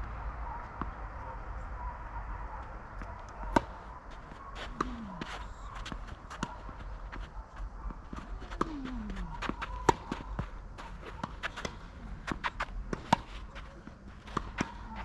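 Tennis ball knocks and bounces with footsteps on an outdoor tennis court: sharp, separate impacts scattered irregularly, the loudest about three and a half seconds in.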